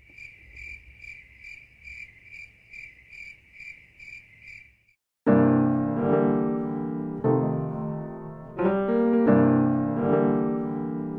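Cricket chirping, a steady high chirp repeated about two and a half times a second, which stops about five seconds in. Then piano music with full chords starts and runs on.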